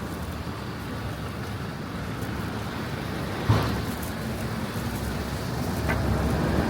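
City street ambience with a steady low rumble of traffic, broken about halfway through by one sharp knock, with the traffic getting louder toward the end.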